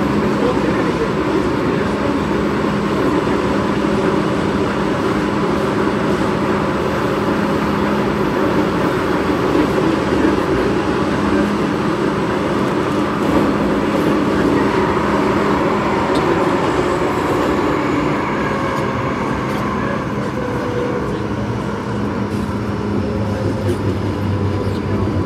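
MTR Kwun Tong line M-train running at speed, with a steady rumble from the wheels on the track and whining tones from the traction equipment. About two-thirds of the way through, the brakes come on and the whine falls in pitch as the train slows for the station.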